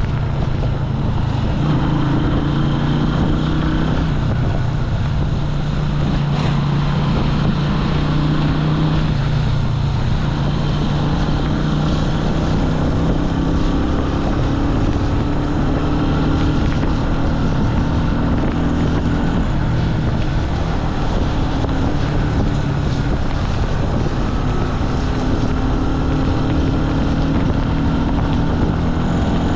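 Jialing 150 cc motorcycle engine running under way, its note dropping and rising again as the revs change, with wind rushing over the microphone.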